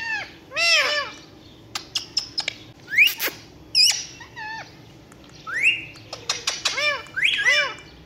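Indian ringneck parakeets calling: short arched squawks, sharp clicks and a couple of quick rising whistles, in scattered bursts.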